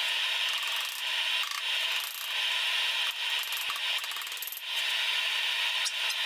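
Slow, even rasping strokes of hand abrasive work on metal, about one stroke every second and a half.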